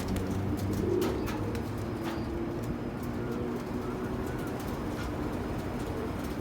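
Several domestic pigeons cooing at once, overlapping low calls, with scattered light clicks.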